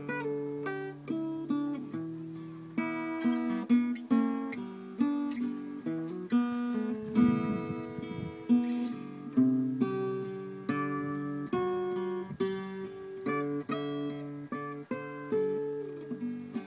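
Acoustic guitar playing a run of chords, each struck chord ringing out and fading before the next.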